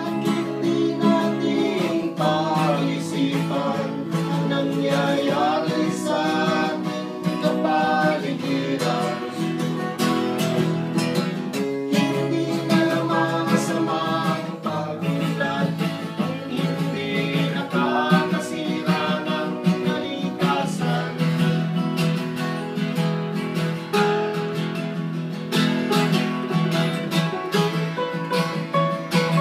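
Acoustic guitar strummed in a steady folk accompaniment, with a sung melody in phrases over it: a Filipino folk song.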